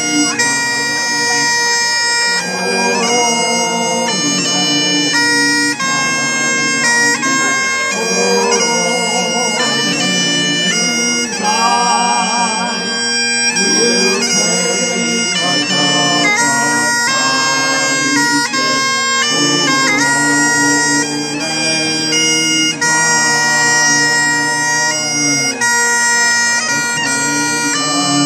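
Great Highland bagpipes playing a tune: a melody of changing notes over the steady, unbroken drones, loud and continuous.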